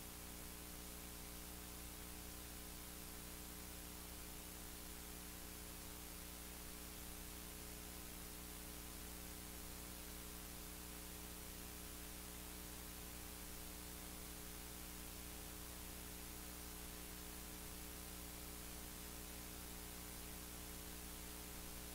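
Faint, steady electrical hum with a layer of hiss: mains hum and noise in the studio's sound line, unchanging throughout.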